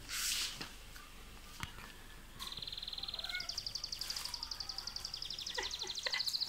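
Rapid, high-pitched chirping trills, steady in pitch: one starts about two and a half seconds in and a second, higher trill joins about a second later, both running on. A short rustle comes at the very start.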